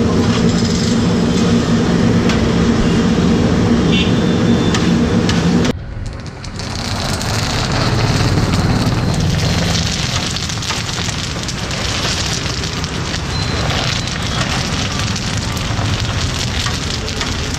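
Potato chips sizzling in a large iron kadai of hot oil, a continuous hiss, with the perforated metal skimmer stirring through them. A steady low hum runs under it for the first six seconds; it drops away at a sudden cut, and the sizzling goes on after it.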